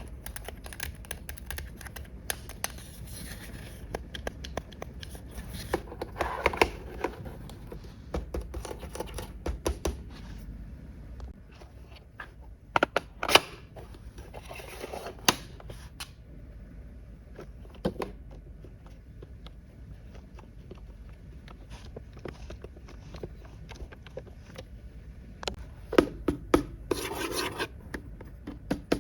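Hands unpacking a plastic toy cash register set: rustling and scraping of packaging with scattered sharp clicks and taps of plastic pieces, the loudest about halfway through and near the end.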